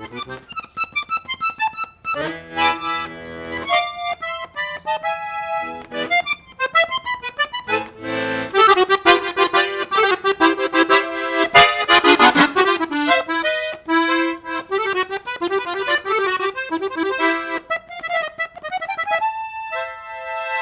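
Accordion playing a rasguido doble, an Argentine Litoral folk tune, as a lively run of notes and chords that ends on a held note.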